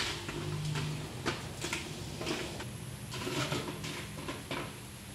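Light clinks and knocks of metal kitchenware being handled, a handful of separate sharp ticks spread through, over a faint steady low hum.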